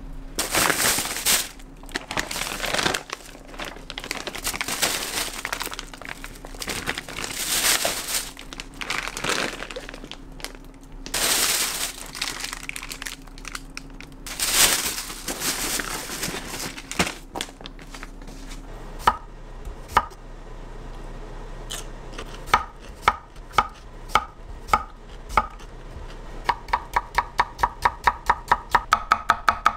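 Rustling and crinkling handling noise for the first half, then a kitchen knife striking a cutting board: a few separate cuts, turning near the end into fast, even chopping at about four strokes a second.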